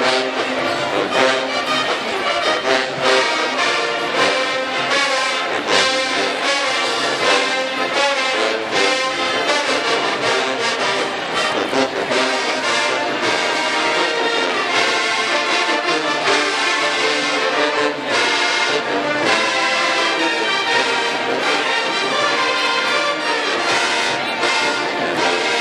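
HBCU show-style marching band playing in the stands: massed trumpets, trombones and sousaphones over a driving drum beat.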